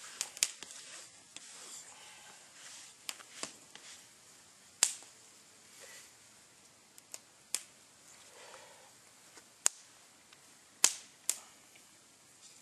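Sharp, irregular pops and snaps, about a dozen spread unevenly, typical of a wood campfire crackling.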